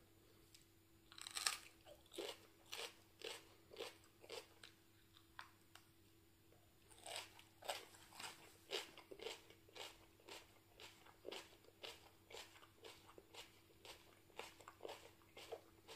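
A person biting into and chewing a fresh, crisp chili pepper pod: a loud crunching bite about a second and a half in, then steady crunchy chewing at about two chews a second, with a second burst of crunching bites about seven seconds in.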